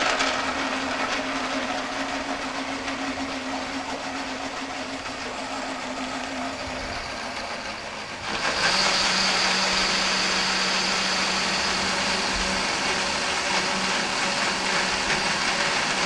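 Countertop blender running, puréeing hot squash soup in its heat-resistant jar. A steady motor hum that turns louder and brighter about eight seconds in.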